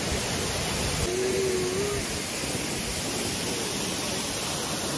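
Steady rush of a waterfall pouring onto rocks, an even roar of falling water. A short steady tone sounds about a second in and lasts about a second.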